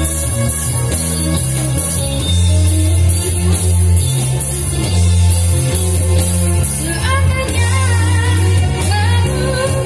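Live band playing a pop song, with guitar over a heavy bass line. A boy's singing voice comes in about seven seconds in.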